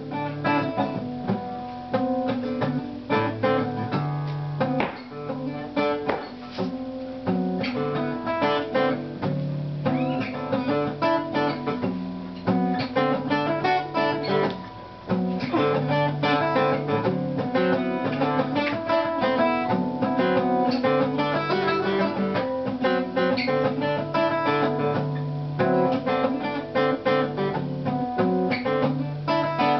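Acoustic guitar music, plucked and strummed, playing steadily.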